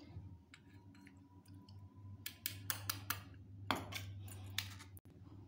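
Steel spoon clinking and scraping faintly against a steel bowl and tea strainer as soaked tamarind pulp is spooned in to be strained: a few scattered light clinks over a steady low hum.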